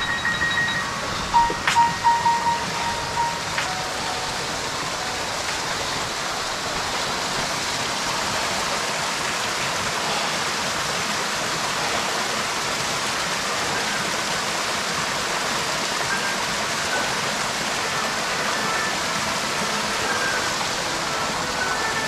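Water rushing steadily down a rocky waterfall and over wet rock, a constant hiss. A few chiming music notes sound faintly in the first couple of seconds.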